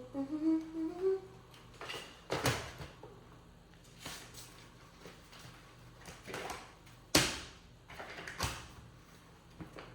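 A short hummed note rising in pitch, then scattered knocks and rustles of things being handled. The sharpest knock comes about seven seconds in.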